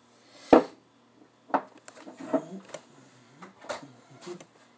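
Workbench handling noise: a sharp thump about half a second in, then several light knocks, clicks and rustles as a spark plug wire and boot are put down among tools and plastic-bagged parts.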